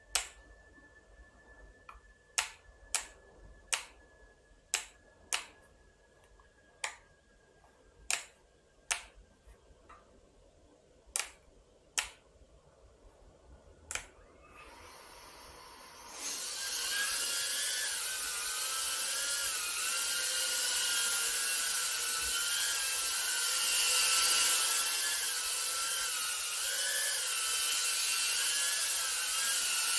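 Sharp single clicks at irregular intervals, then about halfway through a small FPV drone's propellers spin up to a loud, steady high whine whose pitch wavers as the throttle changes.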